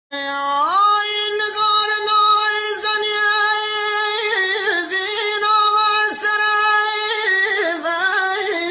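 A man singing sharveh, the southern Iranian folk lament, unaccompanied: one long held wordless vowel that slides up in pitch about a second in, is sustained high, and breaks into ornamental wavers in the second half.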